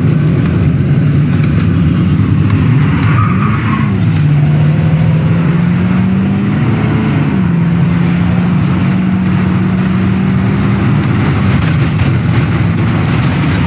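Dominator 3 armored storm-chasing vehicle driving with its engine running under a loud, steady rumble of tornado wind. The engine's pitch rises and falls about three seconds in and again near the middle, then settles lower near the end.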